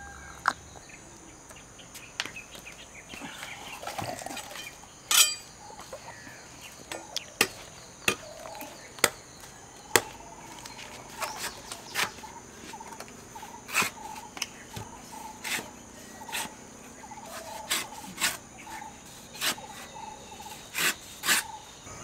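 Irregular sharp knocks, about one every second or two, as fresh green coconuts are chopped open with a blade, over a steady high drone of insects and repeated bird calls.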